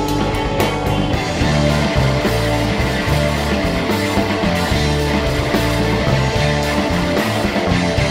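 Rock band playing live without vocals: distorted guitars and bass over steady drums, an instrumental passage after the chorus.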